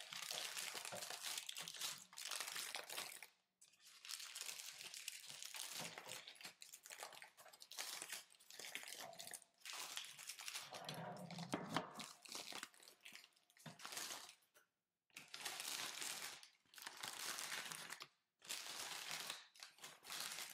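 Parchment paper crinkling in short spells with brief pauses, as it is gripped and lifted to pull a baked loaf out of its pan.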